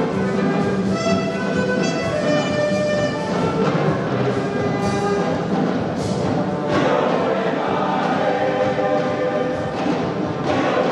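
Boys' choir singing a rumba song with a drum kit. Held sung notes for the first three seconds or so, then a fuller, busier sound with drum hits.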